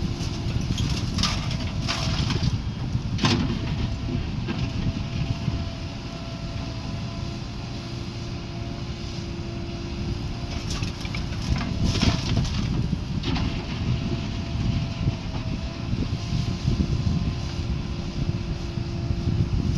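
Diesel engine of heavy farm or earthmoving machinery running steadily, with several sharp knocks: a few in the first seconds and a cluster a little past the middle.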